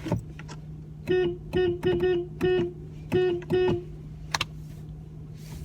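Car horn tooted in a rhythm of seven short beeps, five close together and then two more after a short pause. No other horn answers.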